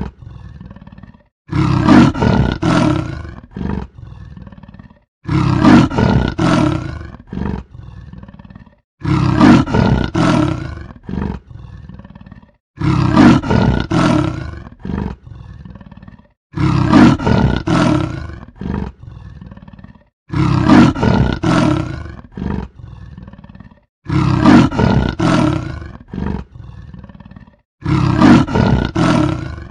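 Leopard roaring: a few loud strokes that trail off into quieter ones. The same call repeats about every four seconds, eight times in a row.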